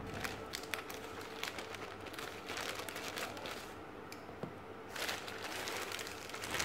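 Plastic courier mailer bag crinkling and rustling as it is cut open with scissors and handled, with scattered sharp crackles and a quieter stretch about four seconds in.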